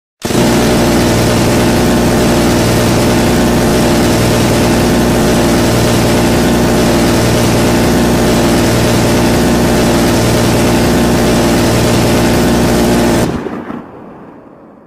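M134 Minigun, a six-barrelled rotary machine gun, firing one long continuous burst: shots too fast to tell apart merge into a steady, loud buzz. It starts abruptly, stops about thirteen seconds in, and leaves a fading echo.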